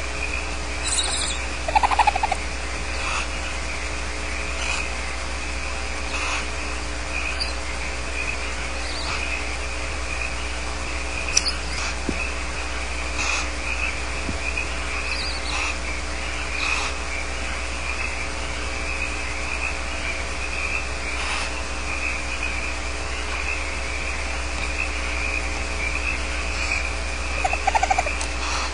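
Barn owl chicks in a nest box giving short rasping begging calls about every second and a half, with a louder chittering call about two seconds in and again near the end. A steady electrical hum runs underneath.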